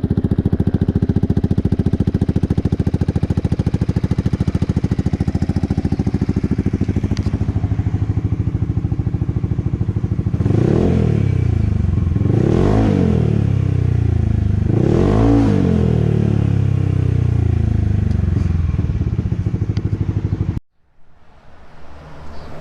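Yamaha XMAX scooter's single-cylinder engine idling through an aftermarket Aka-style exhaust with a titanium header and its dB killer fitted, blipped three times about ten seconds in, each rev rising and falling quickly, then back to a steady idle before the sound cuts off suddenly near the end.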